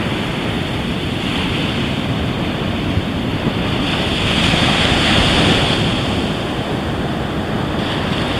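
Ocean surf breaking on the beach, a steady wash that swells louder about halfway through as a wave comes in, with wind buffeting the microphone.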